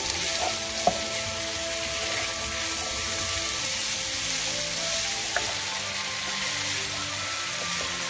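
Diced pork and frozen green peas sizzling steadily in a hot pan as a wooden spatula stirs them, with sharp knocks of the spatula on the pan about a second in and again past five seconds.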